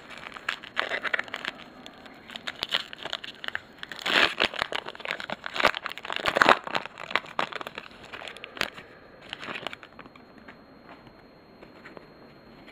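Foil trading-card pack wrapper crinkling and crackling as it is handled and torn open, in irregular bursts that are loudest around four and six seconds in, then dying away for the last couple of seconds.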